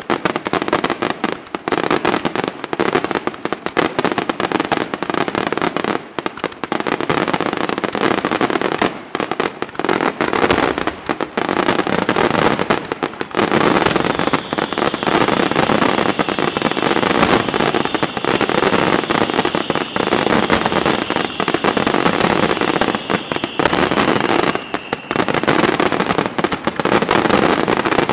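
Aerial fireworks shells exploding in a dense, rapid barrage, the bangs running into one another without a break. From about halfway through a steady high whistle rides over the bangs, then dips slightly and fades near the end.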